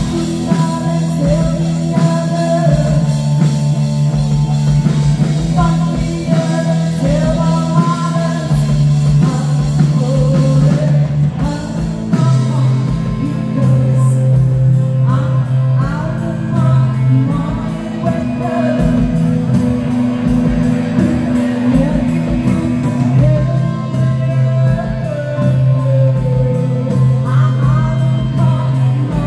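Live rock band playing a song: a woman singing into a microphone over bass guitar, electric guitar and drums, amplified through the PA.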